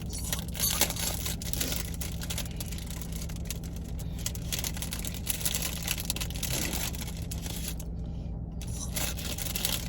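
A plastic wrapper on a chocolate chip cookie crinkling and tearing as it is opened by hand, over a steady low hum.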